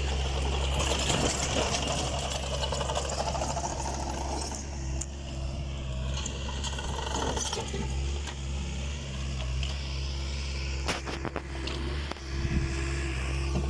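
Takeuchi excavator's diesel engine running steadily while loading logs, working harder in the first few seconds, with a few sharp knocks about eleven seconds in.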